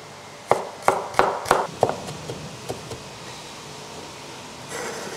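Cleaver chopping shallots on a wooden cutting board: a quick run of about five sharp knocks, roughly three a second, then a few lighter taps that fade out after about three seconds.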